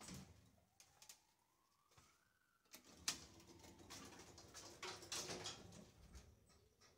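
Soviet ShchLZ lift car's doors shutting, with sharp clicks about 3 s in and a clattering around 5 s. A faint rising whine is heard beforehand.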